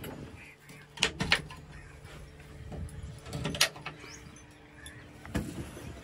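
Sharp clicks and clunks from the cab hardware of an ACE AX-124 backhoe loader as the roof hatch and door are worked: two about a second in and another louder one past the middle, over a faint steady hum.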